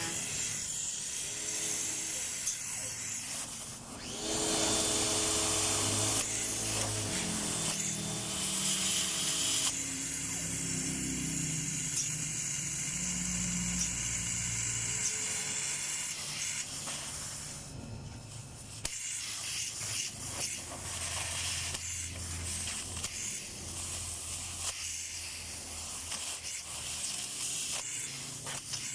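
Inverter air conditioner running on test after its IPM was replaced: a steady hiss of moving air with a low motor hum, and tones that step up and down in pitch during the first ten seconds or so.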